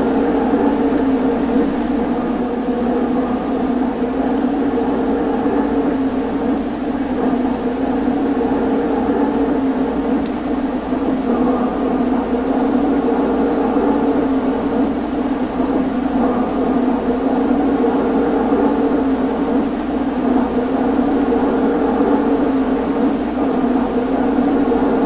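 HO-scale model electric locomotives running with a train of hopper cars: a steady mechanical hum from the motors, gearing and wheels on the track.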